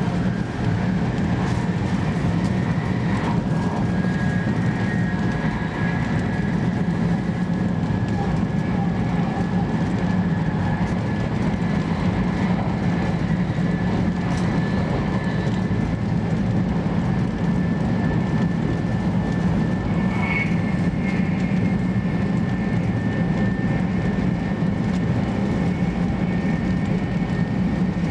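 Interior running noise of a 500 Series Shinkansen travelling at speed: a steady low rumble with a faint, steady high-pitched whine.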